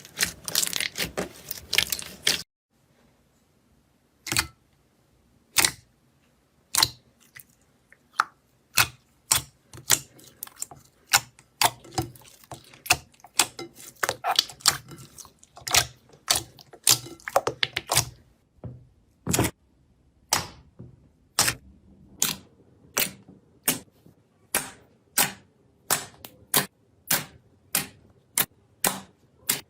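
Slime being handled for ASMR: dense crackling for about two seconds, then after a short pause a series of sharp single clicks, about one a second at first and quickening to about two a second.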